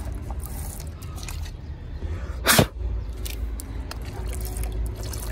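Water with daphnia being poured from a cup into a container of betta fry, with one brief sharp splash about two and a half seconds in.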